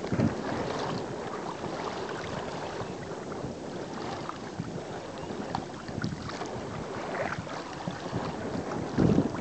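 Water sloshing and splashing along the hull of a sailing kayak under way, with wind buffeting the microphone; one louder splash near the end.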